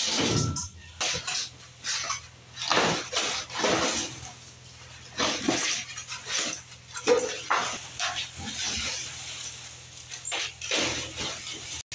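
Cardboard packaging and plastic wrap being pulled off and handled: irregular rustling, scraping and crinkling at uneven intervals, over a faint steady low hum. The sound cuts off abruptly near the end.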